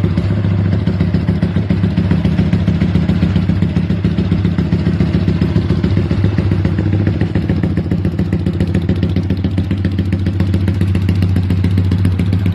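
Yamaha Y15ZR (MX King) 150cc single-cylinder four-stroke engine running steadily at an even speed, without revving.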